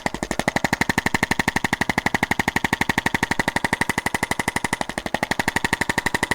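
Arthrostim electric chiropractic adjusting instrument running, its tip tapping in a rapid, even train of about twelve pulses a second.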